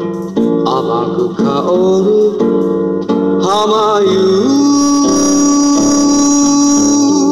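Slow ballad played on guitar: plucked guitar chords under a melody line that moves through several notes, then settles on one long note with vibrato about halfway through.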